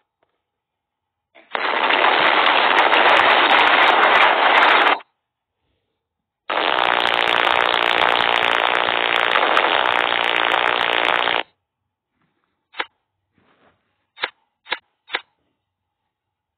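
Meme soundboard sound effects played back: a loud, noisy blast lasting about three and a half seconds, then after a short pause another lasting about five seconds, followed by four short sharp clicks near the end.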